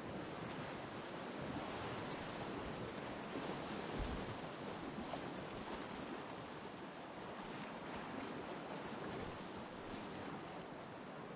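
Whitewater rapids rushing steadily around a kayak, heard close up, with a single dull thump about four seconds in.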